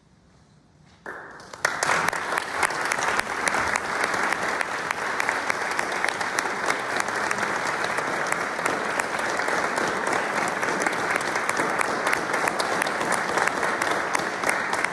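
Audience applauding, breaking out suddenly about a second in after a moment of near silence and then holding as steady, dense clapping.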